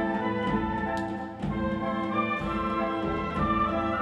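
Wind band playing held chords of brass and woodwinds, with a brief dip in loudness about a second and a half in.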